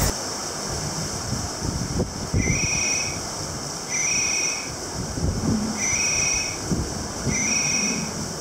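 Four short, high whistles about one and a half seconds apart, over a steady wash of wind and sea noise.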